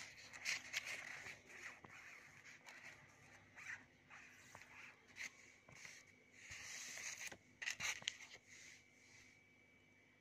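Faint, intermittent rustling and scraping of banknotes in clear plastic sleeves being handled, in short bursts that stop near the end.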